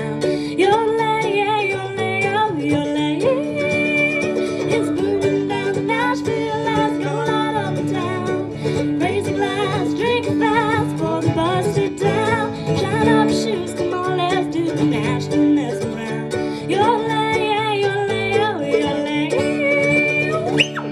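Live bluegrass played on acoustic guitar and mandolin, with singing over the picking.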